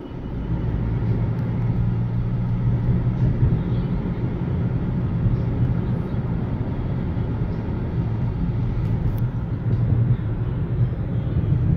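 Steady road and engine noise inside a moving car's cabin, a low, even rumble.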